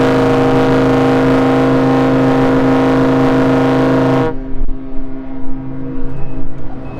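Ship's horn of the expedition cruise ship Hanseatic nature sounding one long, deep, steady blast that cuts off about four seconds in.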